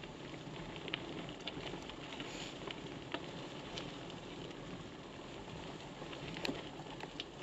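Bicycle tyres rolling over a wet gravel lane: a faint, steady crackling hiss with a few scattered small ticks.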